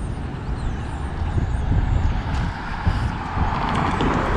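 Road traffic driving past, its tyre noise building over the last couple of seconds, over a low rumble of wind gusting on the microphone.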